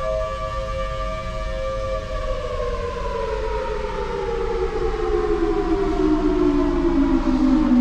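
Federal Signal Thunderbolt civil defense siren holding its steady full-alert tone, then about two seconds in starting to wind down: its pitch slides steadily lower and it grows louder as it falls.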